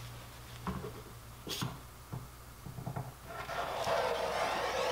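Quiet hand-work sounds of a pine strip and a wood-glue squeeze bottle being handled on a plywood panel: a few light knocks, then a soft rasping hiss from about three seconds in as glue is laid on and the strip is pressed down.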